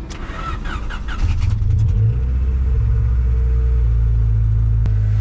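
Honda Civic four-cylinder engine cranked on the starter and catching just over a second in. It rises briefly, then settles into a steady idle on a freshly replaced ignition distributor.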